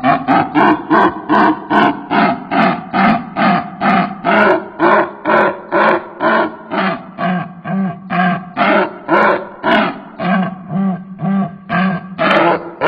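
A bird giving a long run of eerie, harsh pitched calls in a steady rhythm, about four a second at first and slowing to about two a second.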